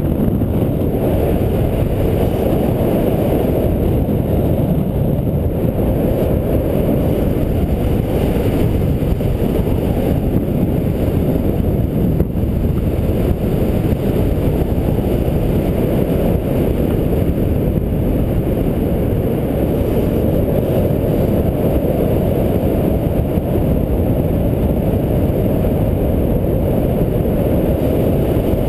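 Steady low rumble of wind buffeting the camera's microphone, from the airflow of a paraglider in flight.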